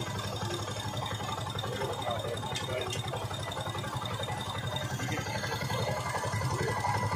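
TVS Victor GX single-cylinder four-stroke motorcycle engine idling steadily, with an even, rapid low pulse.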